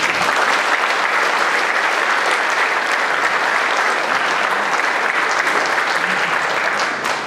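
An audience in a hall clapping steadily, easing off near the end.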